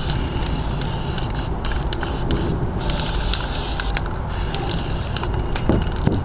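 Aerosol spray paint can spraying in about four bursts of hiss, each a second or so long with short pauses between, over a steady low rumble.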